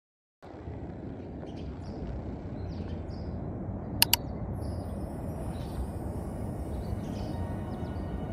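Steady low rumbling background noise with two sharp clicks in quick succession about four seconds in.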